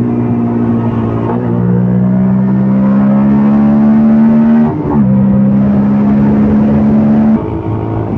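CFMOTO Papio 125's single-cylinder four-stroke engine pulling under throttle, its pitch climbing steadily and dropping with an upshift about a second in and again near five seconds in. Near the end the throttle closes and the engine note falls away.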